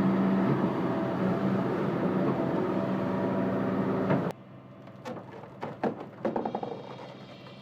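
An engine running steadily, which cuts off abruptly about four seconds in. After that, quieter scattered knocks and clatter.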